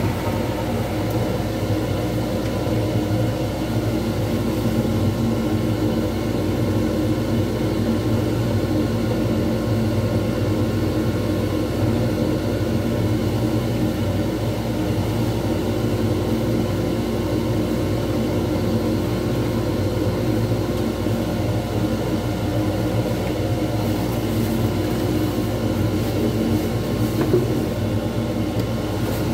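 Lathe running steadily, spinning a glitter resin pen blank on a mandrel while a turning tool cuts it down.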